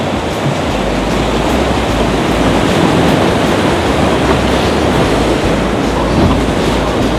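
River whitewater rapids rushing and churning, a loud, steady sound of turbulent water close by.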